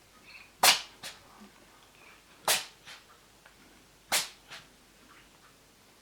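Cat sneezing three times, each sharp sneeze followed about half a second later by a softer second puff.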